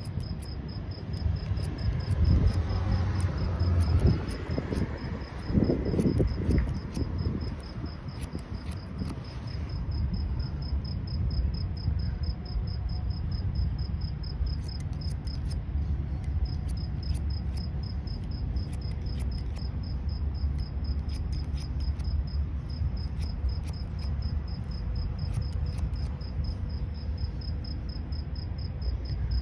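An insect chirring steadily in fast, even pulses, with runs of quick, crisp scissor snips cutting wet hair. A low background rumble sits underneath, stronger in the first few seconds.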